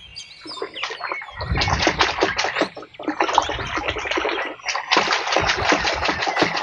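Water splashing and sloshing as mud-caked plastic toy guns are washed by hand, irregular and getting louder about a second and a half in, with brief pauses.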